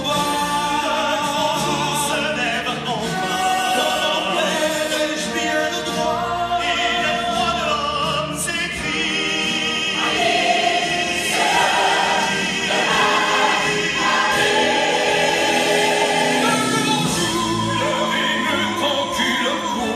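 Recorded French-language musical-theatre song played over a hall's speakers: several voices singing together and over one another with instrumental accompaniment, steady in loudness.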